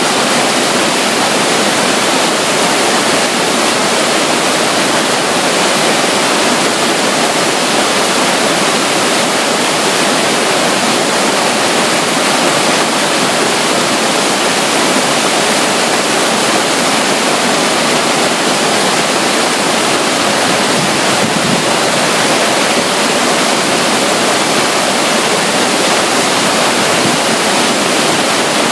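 Loud, steady rush of water from a waterfall and river, an even unbroken roar of falling and flowing water.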